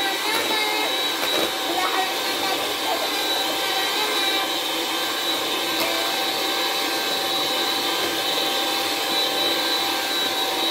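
Electric hand mixer running steadily, its beaters whirring through cake batter in a bowl, with an even high motor whine.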